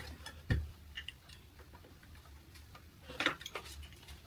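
Light clicks and knocks of plastic caster wheels and steel rods of a clothes drying rack being handled and pushed together: two knocks at the start, a quiet stretch, then a few more clicks near the end.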